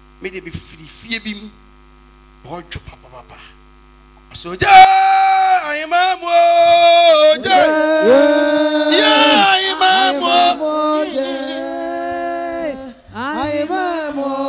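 Mains hum from a public-address system under a few short spoken fragments. About four and a half seconds in, a man starts singing loudly into a microphone, holding long notes with slides between them, with no instruments.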